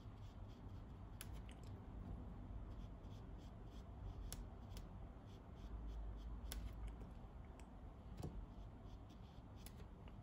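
Quiet handling sounds of watercolour painting with a brush: scattered faint clicks and taps, irregular and a second or more apart, over a low steady hum.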